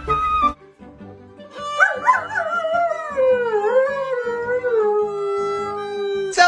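A dog howls one long howl: it starts high and wavering, slides down and holds a lower steady note, over background music.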